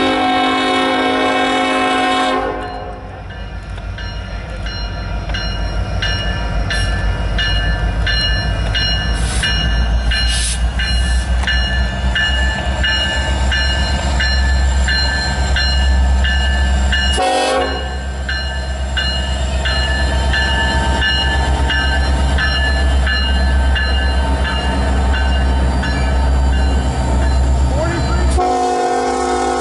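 Union Pacific EMD SD70ACe locomotive's air horn sounding a blast of about two and a half seconds, a short toot about seventeen seconds in, and another long blast starting near the end. Under it, the steady low rumble of the approaching diesel locomotives builds as they draw near and pass.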